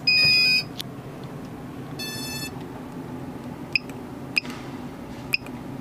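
Electronic beeps from a quadcopter's KK2.1.5 flight control board buzzer: a loud half-second beep at the start and a softer, shorter one about two seconds in. Three faint clicks follow near the end, from the board's menu buttons being pressed.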